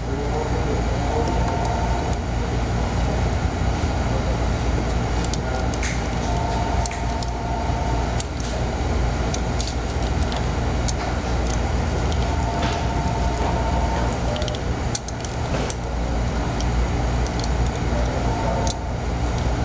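A 3/8 NPT tap is turned by hand with locking pliers, cutting threads into a drilled hole in a plastic intake tube. It gives a few squeaks about a second long as it bites, and light metal clicks, over a steady low hum.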